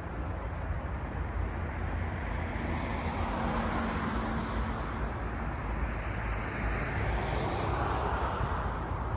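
Wind blowing through feather reed grass, a rustling rush that swells twice, over a steady low rumble.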